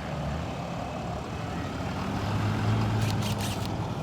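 An engine running steadily, its low hum growing a little stronger about halfway through, with a brief patter of high clicks about three seconds in.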